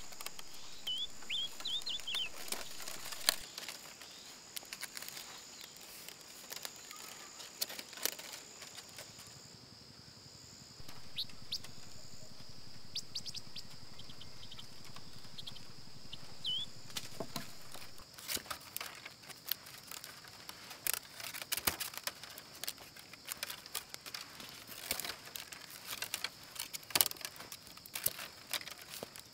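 Outdoor wilderness ambience: a steady high-pitched chorus, a few short chirps, and many irregular sharp clicks and taps close by.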